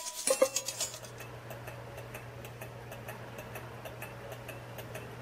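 Small Stirling engine running off the heat of a wood-burning stove, making fast, even ticking over a low steady hum.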